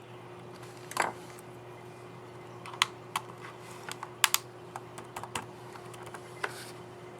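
Keys on a Toshiba Satellite E45DW-C4200 laptop keyboard being pressed, a run of irregular sharp clicks with the loudest about a second in, as the reinstalled keycap is seated on its scissor mechanism and worked. A steady low hum runs underneath.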